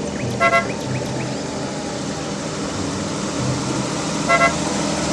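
Two short car-horn toots, about four seconds apart, over a steady rushing noise with a low hum.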